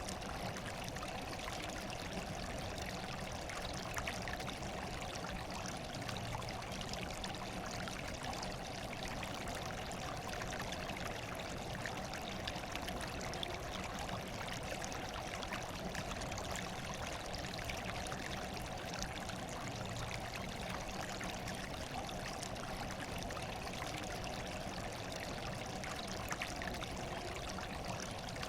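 Steady running water, trickling and pouring, with fine splashes, as an even rushing noise.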